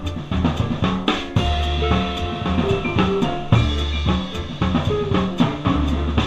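Jazz drum kit played hard, with snare, bass drum and cymbal strokes, over a swing band's low bass notes and held notes from the other instruments.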